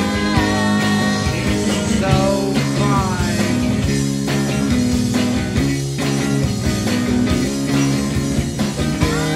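Live rock band playing: electric guitars over a drum kit, with a melodic line sliding in pitch now and then.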